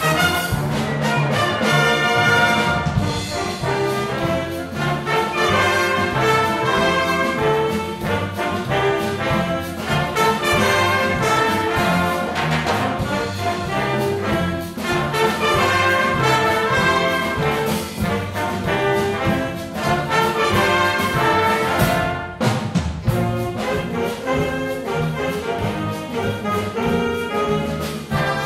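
Wind band playing a Cuban-styled piece, brass to the fore over a steady percussion beat. About 22 seconds in there is a short break in the sound before the band plays on.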